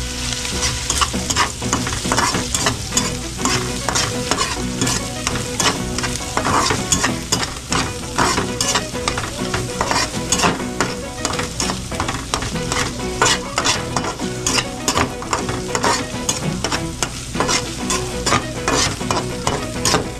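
Canned corned beef with egg frying and sizzling in a pan, stirred with a utensil that scrapes and clinks against the pan in rapid repeated strokes.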